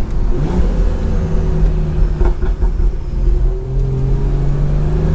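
Stage 2 tuned BMW 340i's B58 turbocharged 3.0-litre inline-six running under light throttle at low speed, over a steady low rumble. Its note comes up about half a second in, holds, and drops a little about three seconds in.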